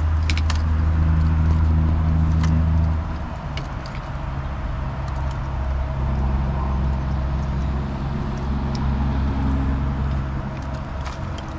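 Boat motor running steadily under way, its low hum dropping in level and pitch about three seconds in, with scattered light clicks from handling the planer board and its line clip.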